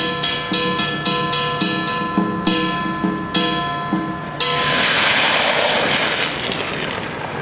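Chinese ritual music: a held pitched tone under quick, evenly repeated metallic strikes. About four and a half seconds in, a loud hissing crash, like clashed cymbals, comes in and covers the rest.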